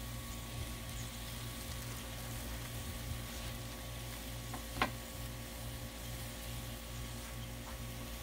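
Frozen diced broccoli and carrots sizzling steadily on a Blackstone flat-top griddle, over a low steady hum. One sharp click about five seconds in.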